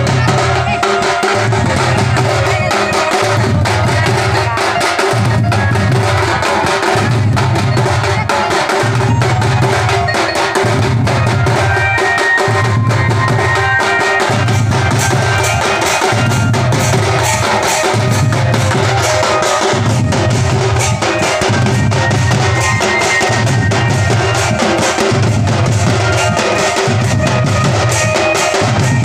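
A group of barrel drums (dhol) beaten together in a fast, loud rhythm over a deep beat about once a second.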